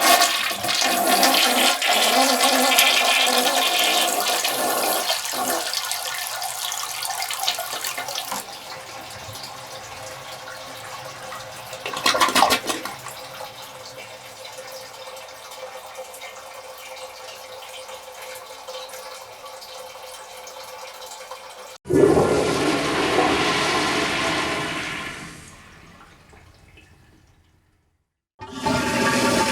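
Toilet flushes: a loud rushing flush that eases into a long, quieter steady run of water, with a brief louder gurgle about twelve seconds in. A second flush starts suddenly about two-thirds of the way through and dies away, and a third begins just before the end.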